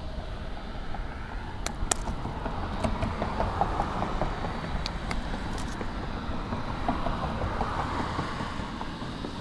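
A car passing on the road, its tyre and engine noise swelling up over a few seconds and easing off near the end, over a steady low rumble. A few sharp clicks sound about two seconds in and again in the middle.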